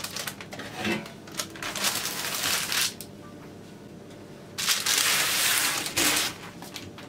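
Baking parchment paper rustling and crinkling as a braided loaf is slid on it off a metal baking tray onto a wooden board, with a few light knocks. It goes quiet for a moment, then the paper rustles again for about a second and a half.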